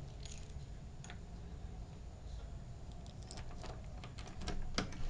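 Soft clicks and small metallic rattles of a round door knob and its latch being handled. They are sparse at first and come more often in the last couple of seconds, over a low, steady rumble of room tone.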